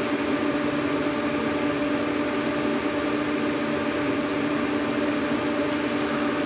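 Ventilation fan running with a steady, even hum and a constant low tone.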